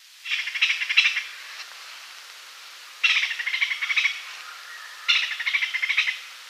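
Squirrel chattering: three quick rattling bursts of high-pitched chirps, each a little over a second long and about two seconds apart, over a faint hiss.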